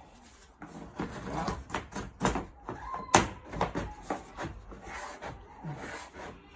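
Keter Scala plastic shed parts being handled and fitted: a run of knocks, creaks and rubbing as a trim piece is worked against the panels, with one sharp click about three seconds in.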